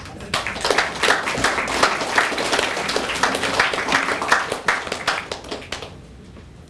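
Audience applauding. The clapping starts right away and dies away about six seconds in.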